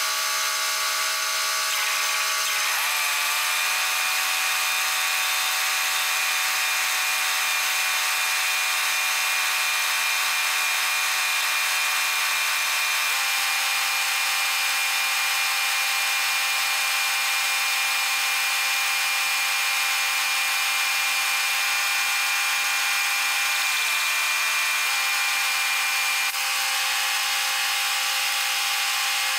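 Arc welding on steel: a steady hissing crackle of the arc over an engine-driven welder running, its engine tone stepping to a new pitch a few times.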